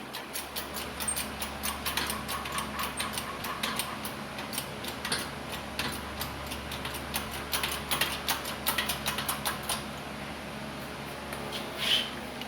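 Irregular light metallic clicks and taps from a screw press and its cup being centred and snugged down on a wheel hub to press in a new wheel stud. The clicking thins out near the end.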